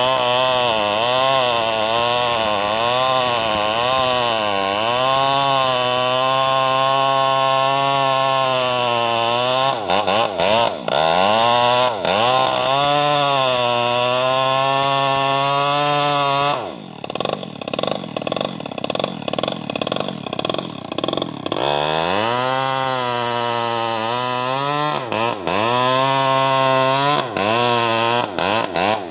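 New West 588 two-stroke chainsaw, run without a muffler, cutting into the trunk of an old teak tree. At full throttle the engine pitch rises and sags as the chain bogs and recovers in the hardwood. About 17 s in it drops to idle for a few seconds, then is revved back up and goes on cutting.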